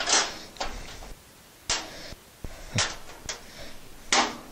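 Clunks and scrapes of a sheet-metal grill cart cabinet being handled, about six short bursts spread across a few seconds.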